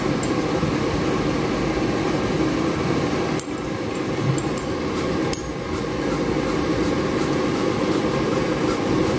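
Air fryer fan running with a steady hum, and a few brief light clicks near the middle from the hand-held oil spray can being worked over the basket.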